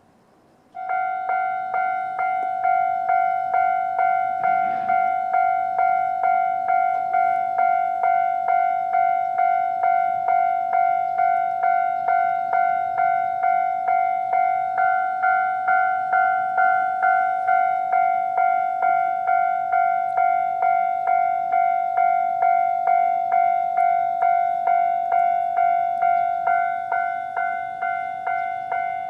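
Japanese level-crossing alarm switching on about a second in and ringing steadily: an electronic bell tone struck evenly about one and a half times a second, warning that a train is approaching.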